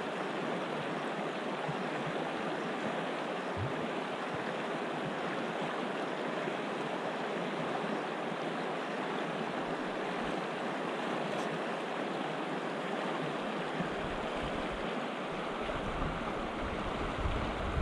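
Steady rush of flowing river water. A low rumble comes in near the end.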